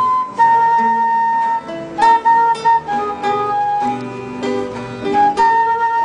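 Instrumental music: a melody of long held notes on a woodwind, over plucked string accompaniment.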